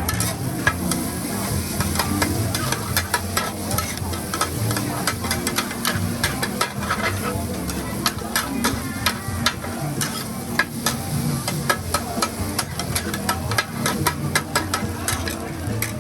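Food sizzling as it is stir-fried in a pan, with frequent sharp metallic clacks of a cooking utensil striking the pan.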